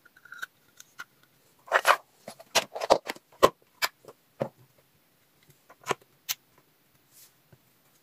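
Short plastic knocks and clicks from handling a power strip and a phone charger: the strip is set down on a rubber work mat and the charger is pushed into one of its sockets. The knocks come in a quick cluster in the first half, then a few single ones spaced out.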